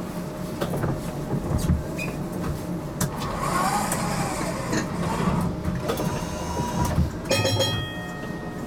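HTM GTL8 tram running, heard from on board, with clicks and a wavering squeal midway. About seven seconds in there is a short burst of rapid strikes that leaves a ringing tone, like the tram's bell.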